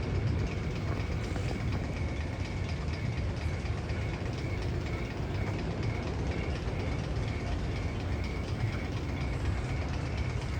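Steady, train-like rumbling noise with a faint high tick repeating about two to three times a second, one of the sound effects played in the Magnum XL-200 coaster's tunnel.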